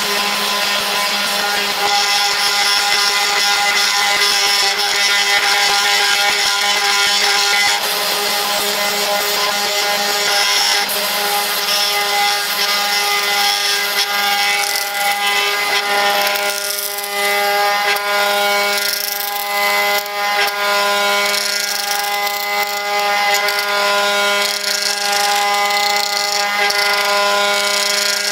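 CNC router spindle running with a steady high whine while its end mill cuts a circle through acrylic (perspex) sheet, over rough cutting noise. The lower part of the noise thins out about eleven seconds in.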